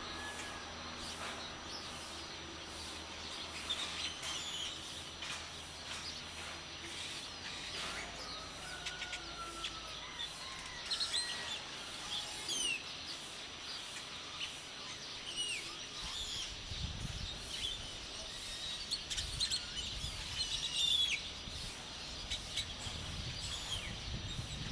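Birds chirping and calling in a dawn chorus, short scattered chirps and whistles, some sliding in pitch, over a steady background hiss of the town. A few low rumbles come in during the second half.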